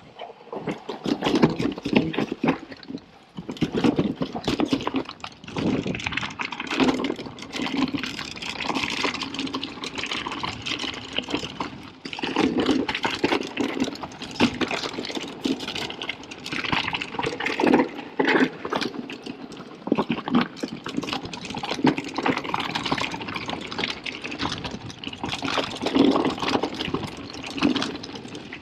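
Mountain bike riding down a rough dirt trail: tyres rolling and skidding over dirt and rocks, with the bike's chain and frame rattling in rapid clatters that swell over the bumps.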